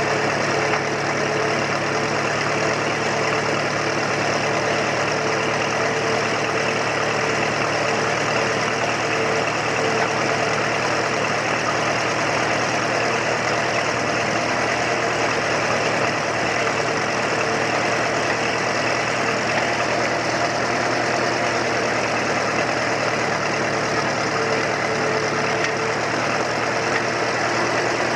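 Ferguson TE-A20 tractor engines running at a steady, unchanging speed, a constant engine note.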